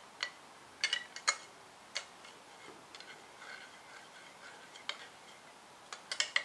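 Metal spoon stirring caustic soda as it dissolves in goat's milk and water in a glass jar, clinking against the glass in irregular taps, several in the first two seconds, few in the middle and a cluster near the end.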